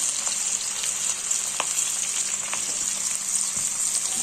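Chopped garlic and green chillies sizzling in hot butter and oil in a kadai: a steady high hiss with a few small scattered pops.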